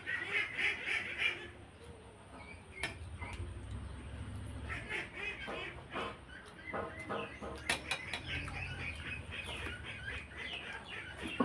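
Birds chirping over and over, loudest in the first second or so and again in the second half, over close mouth sounds of someone chewing rice and curry, with a few sharp clicks.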